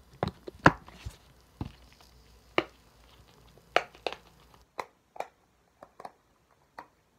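Silicone pop bubbles on the quiet side of a butterfly dimple fidget toy being pressed in one after another. They make about a dozen sharp, irregularly spaced clicks.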